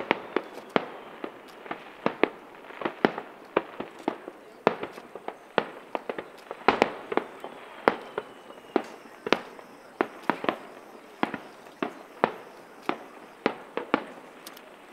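Fireworks display: aerial shells bursting in a rapid, irregular string of sharp bangs, about two or three a second, over a crackling background.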